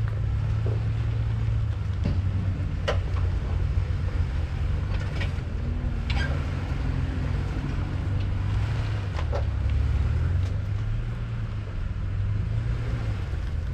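Off-road truck engine running steadily at low speed while crawling a rocky trail, with a few sharp knocks and clicks over it.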